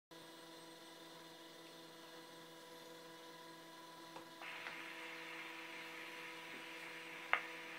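Lead-in of an Edison Gold Moulded wax cylinder playing, before any voice: a faint steady hum under surface hiss. The hiss gets louder about four and a half seconds in, and a single sharp click comes near the end.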